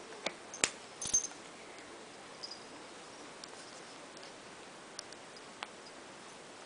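A few sharp clicks and a brief, light jingling clatter in the first second and a half, then a few faint ticks, over a steady low hiss.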